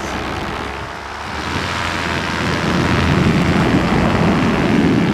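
Paramotor engine running in flight, with heavy wind rush over the microphone. The sound swells about a second in and holds.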